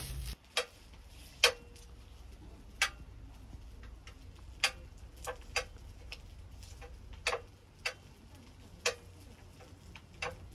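Sharp single clicks or pops, about a dozen at irregular intervals, over a faint low rumble.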